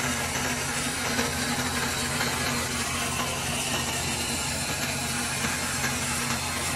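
Bandsaw running and cutting through a thin wooden panel: a steady motor hum under the even noise of the blade in the wood.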